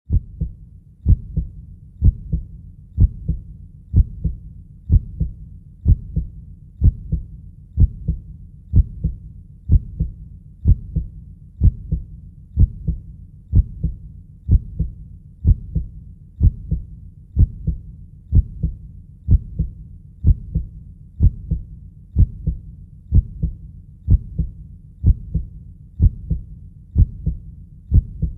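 Heartbeat sound, a steady lub-dub rhythm of low double thumps at about one beat a second.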